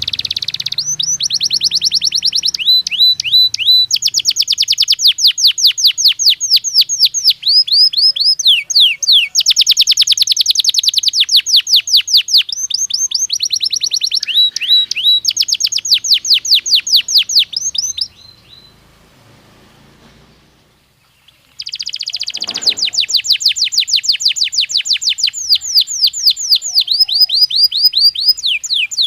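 Belgian canary singing: long rapid trills of repeated sweeping notes, broken by a pause of a few seconds about two-thirds of the way through before the song starts again.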